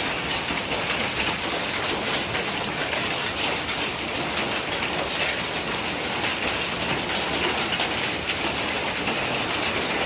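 Heavy hail mixed with rain pelting a rooftop: a steady, dense clatter of countless small impacts over the hiss of pouring rain.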